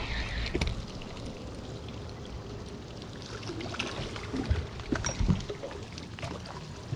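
Water sloshing and splashing beside a boat as a hooked flathead is brought to the surface, with a few sharp knocks on the boat about four and a half to five and a half seconds in as the landing net is handled.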